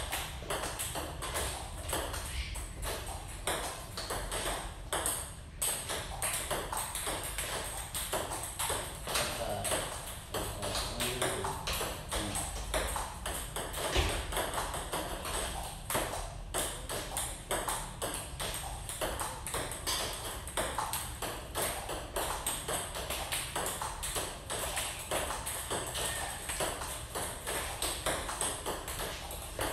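Table tennis practice rally: a celluloid-type ping-pong ball clicking in quick succession off rubber-faced paddles and the tabletop, several hits every second without a break.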